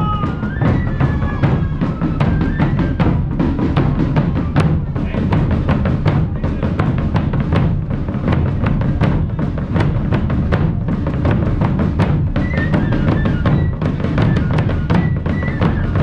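Music carried by loud, steady drumming: a heavy bass-drum beat under dense, rapid drum strokes, with a few voices or calls above it.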